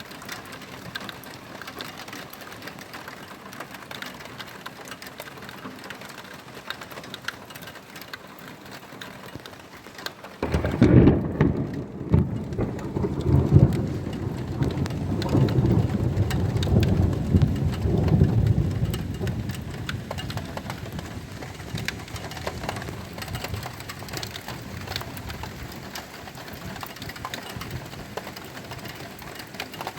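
Steady rain falling during a thunderstorm. About a third of the way in, a loud thunder rumble breaks in suddenly, swells twice and then slowly rolls away under the rain.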